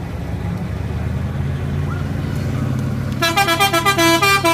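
Truck engine running steadily, then about three seconds in a musical horn plays a quick tune of short notes stepping up and down in pitch, louder than the engine.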